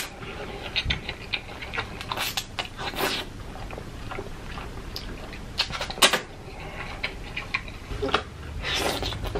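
A person slurping up creamy fettuccine alfredo noodles and chewing them wetly, with several loud slurps among the smacking and mouth clicks.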